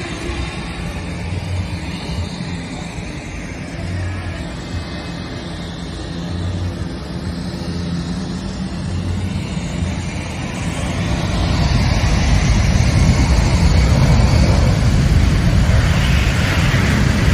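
Boeing C-17 Globemaster III's four turbofan engines running at high power for takeoff, a steady jet noise that swells markedly about two-thirds of the way through as the thrust comes up. Near the end the jet blast reaches the microphone and buffets it with wind.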